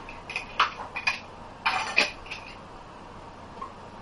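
A handful of short, sharp plastic clicks and knocks over about two seconds, from microcentrifuge tubes and the lid of a benchtop microcentrifuge being handled.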